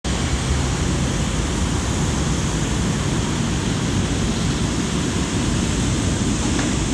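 EP07 electric locomotive pulling slowly out of the station past the platform: a steady, even running noise of the locomotive and its wheels with a low hum underneath.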